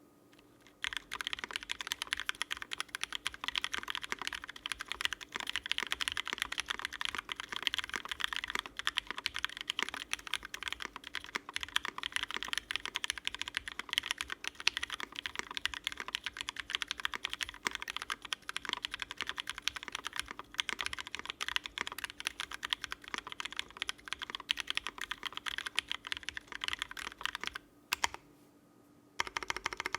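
Fast, continuous typing on a custom 60% mechanical keyboard: mekibo x bisoromi RS60 with lubed Cherry Vintage Black linear switches, an aluminium top-mount plate and GMK keycaps. The typing starts about a second in, pauses briefly near the end, then resumes.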